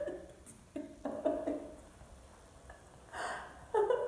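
A person's short, breathy laughs and gasps, several in a row with pauses between.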